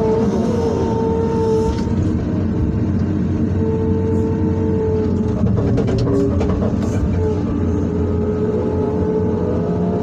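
Excavator's diesel engine and hydraulic system working under load, heard from inside the operator's cab: a steady engine drone with a hydraulic whine that rises and falls as the controls are worked, and a few short knocks about halfway through.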